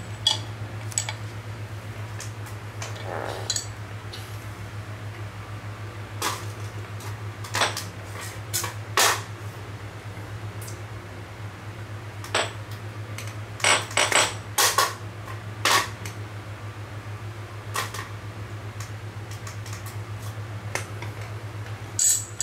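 Scattered sharp metallic clicks and knocks as small steel-headed hammers are handled and set down on a table, the loudest cluster about two-thirds of the way through. A steady low hum runs underneath.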